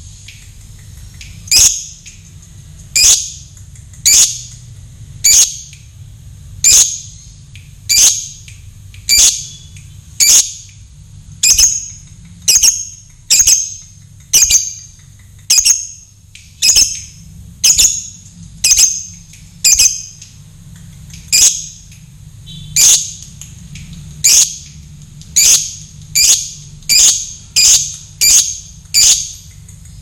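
A caged lovebird giving short, shrill squawks about once a second. The calls come faster, roughly two a second, in the last few seconds.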